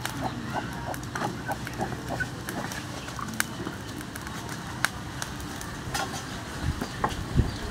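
Charcoal embers crackling, with scattered sharp pops at irregular times and one louder pop about five seconds in.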